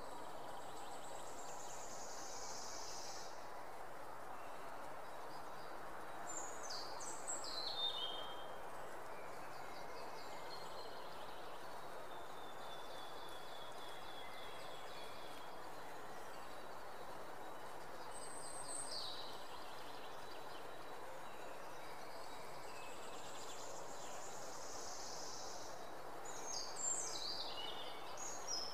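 Faint, steady outdoor ambience with scattered high bird calls: short chirping phrases about six to eight seconds in, again around nineteen seconds, and once more near the end.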